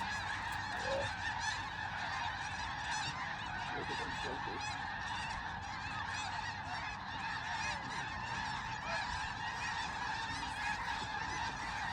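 A large flock of snow geese honking, a dense, continuous chorus of many overlapping calls at an even level.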